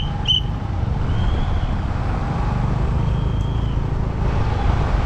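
Scooter running at low speed over a dirt lot, a steady low rumble with wind buffeting on a helmet-mounted microphone. Two short high beeps near the start and two longer high tones later sound over it.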